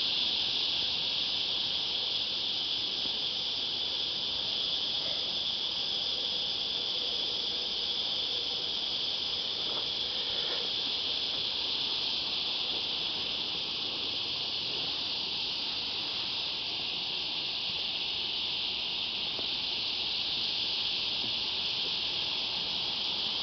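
Cicadas in chorus: a steady, unbroken high-pitched drone.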